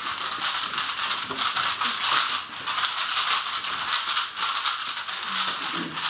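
Many Rubik's cubes being turned quickly at the same time: a dense, unbroken clatter of plastic layers clicking and rattling.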